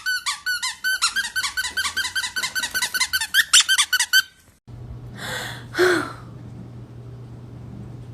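A rapid run of high-pitched squeaks, about four or five a second, that stops after about four seconds. It is followed by a low steady hum and two short breathy puffs.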